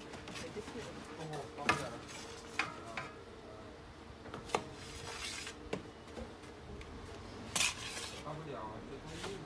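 Steel cleaver cutting through a stack of thin pancake wrappers on a stainless steel tray, its blade knocking and clinking against the tray: a few separate sharp metallic clicks, then a quick cluster near the end.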